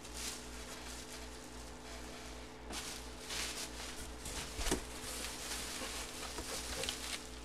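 Plastic bubble wrap crinkling and rustling as a wrapped football helmet is handled and unwrapped, busier in the second half, with one sharp click about halfway through, over a low steady hum.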